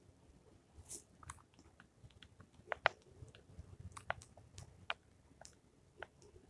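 Faint, irregular small clicks and ticks, a dozen or so scattered over several seconds, with no steady sound behind them.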